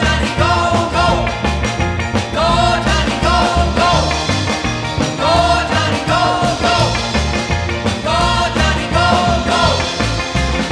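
1950s-style rock and roll band playing live: singing over electric bass and guitar with a steady, driving beat.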